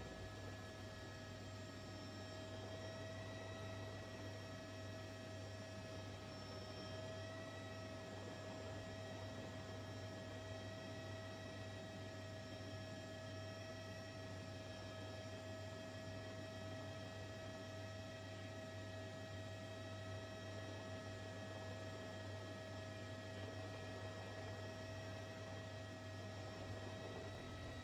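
Faint, steady electrical hum, with a few thin, unchanging higher tones above it and nothing else.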